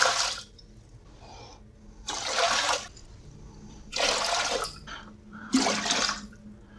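Water poured from a measuring cup into the stainless steel boiler of a Wein 3 still, in separate pours: the end of one at the start, then three more about one and a half to two seconds apart. The boiler is being topped up with 1.8 litres of water over the herb infusion before distillation.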